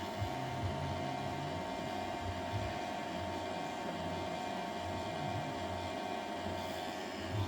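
Smoke machine running with a steady hum, pushing smoke through a freshly welded repair to show up pinhole leaks.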